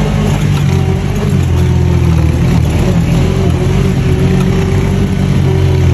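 Off-road buggy engine running steadily at an even pitch.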